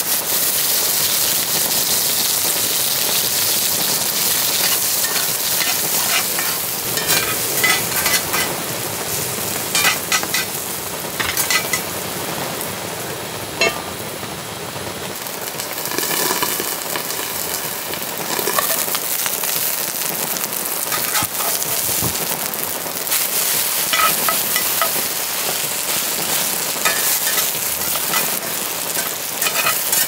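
Food sizzling in a hot pan, with scattered clicks and knocks of cooking utensils against it.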